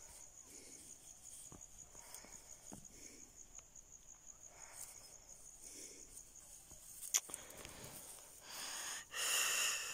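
Faint outdoor ambience: a steady high insect chirring, pulsing about five times a second, with soft sounds of puppies moving about in grass and dry hay. A sharp click comes about seven seconds in, and a louder rustling noise starts near the end.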